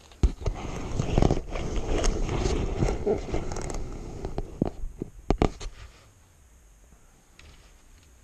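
Plastic Lego pieces being handled and scraped about on the floor close to the microphone, a rough scraping with sharp clicks mixed in. A few louder clicks come near the end, and it stops about six seconds in.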